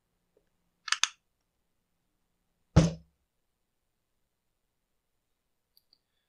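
Two quick plastic clicks about a second in as the Husqvarna 353 chainsaw's cylinder cover is snapped into place, then a single heavier thump about three seconds in as the saw is moved on the bench.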